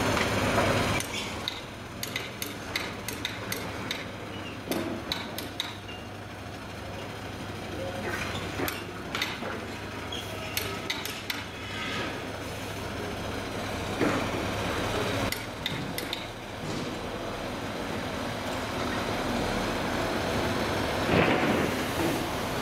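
A truck engine running as a tractor unit pulls a trailer past, with sharp metal knocks and clanks coming in scattered runs. The running noise grows louder near the end.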